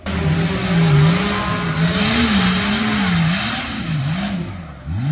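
An off-road 4x4's engine revving up and down again and again, about once a second, under heavy throttle, with a loud rushing noise over it that fades near the end.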